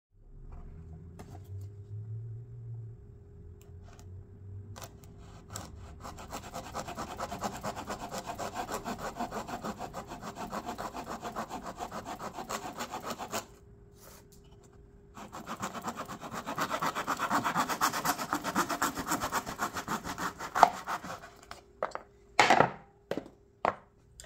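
Coping saw cutting through a wine cork held in a wooden jig: quick back-and-forth strokes in two long runs with a short pause between, followed by a few sharp knocks near the end.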